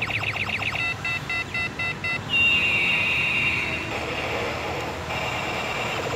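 Electronic toy sound effects: a fast chirping warble, then a run of about six short beeps, then one long falling tone, and a steadier pulsing tone near the end.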